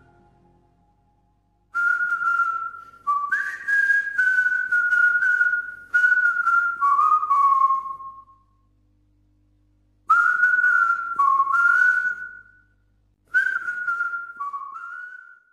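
A person whistling a simple tune in four short phrases, the notes stepping up and down, with gaps of about a second between phrases.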